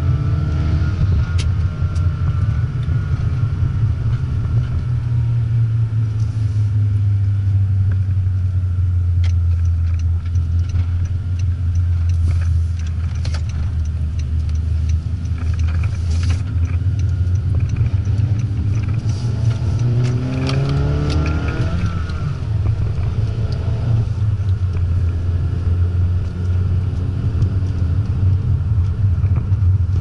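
A 2015 Honda Fit's 1.5-litre four-cylinder running through a Buddy Club titanium axle-back exhaust, with an AEM short ram intake, heard from inside the cabin: a steady low exhaust drone while driving. Its pitch falls over the first few seconds, then about two-thirds of the way in the engine note rises as the car accelerates and drops suddenly.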